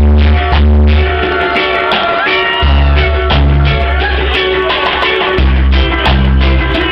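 Live band playing a song, with guitar and a heavy bass line over drums, recorded loud. Bass notes come and go in long held stretches.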